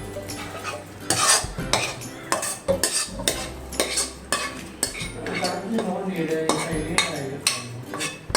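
A spoon scraping and clinking against a cooking pan while food is scooped out and served, in quick, irregular knocks and scrapes.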